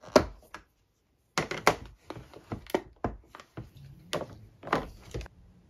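Clip-lock plastic food containers being opened: a run of sharp plastic clicks and knocks as the latch tabs are snapped up and the lids lifted off, with a short pause about a second in.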